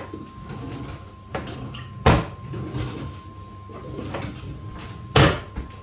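Kitchen cupboard and tray handling: two sharp knocks, about two and five seconds in, with lighter clicks and rattles between, over a faint steady tone.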